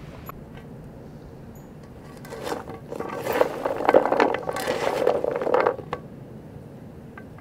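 Chopped raw vegetables (cauliflower, carrot, celery, green chilli) being tossed and mixed by hand on a large metal tray, the crisp pieces rustling, clicking and scraping against the metal. It starts about two seconds in and stops about six seconds in.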